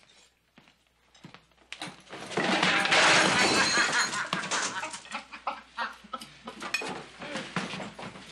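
A man carrying a plate of food falls to the floor with a clatter of crockery about two seconds in, and a crowd of men at once break into loud, cackling laughter that carries on in fits.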